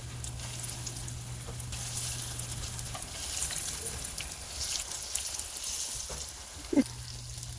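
Hot oil sizzling in a wok as raw pan-fried soup buns (shengjianbao) are set into it one by one. There is a brief louder tap near the end.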